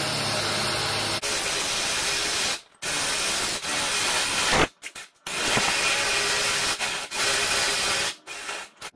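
Cordless drill boring into a wooden door through a door-drilling jig, running steadily and letting off briefly three times.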